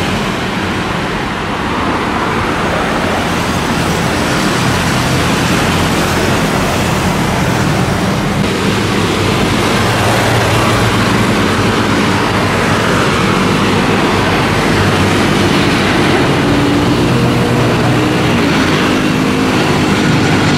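Steady, loud roar of engine noise: jet airliners at the runway mixed with road traffic. Low droning engine tones build near the end.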